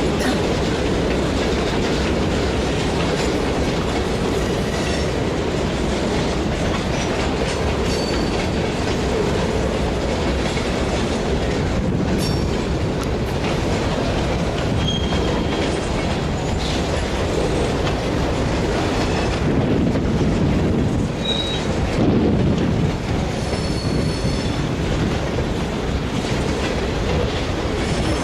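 A moving train: a steady rumbling noise with scattered clicks and a few brief high-pitched squeals.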